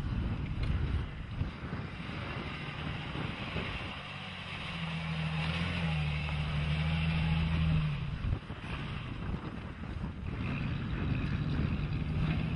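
Jeep Cherokee engine working as the 4x4 drives off-road through mud and snow, with wind buffeting the microphone. Midway through the engine holds a steady drone for a few seconds, stepping up slightly in pitch partway.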